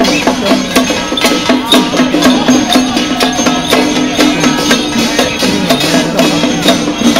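Traditional Taiwanese temple procession music: percussion struck in a fast, steady rhythm over a sustained pitched tone.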